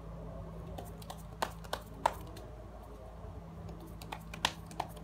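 Steady low hum with a handful of short, sharp clicks and taps scattered through it.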